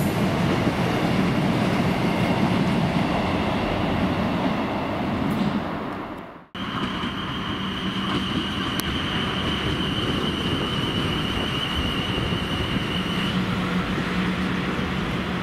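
Train running with a steady low hum. After a sudden cut about six and a half seconds in, more train noise follows with a steady high whine that stops about thirteen seconds in.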